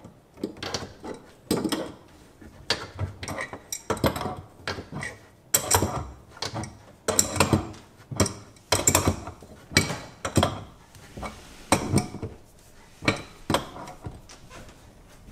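A wrench clinking and knocking against a metal water-line fitting as it is tightened, in irregular sharp clanks about one or two a second, with the grip taken off and put back between turns.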